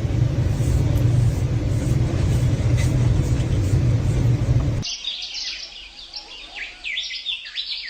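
A loud, steady rumbling noise for about five seconds, cut off suddenly, then a prairie dog's rapid, high-pitched chirping calls.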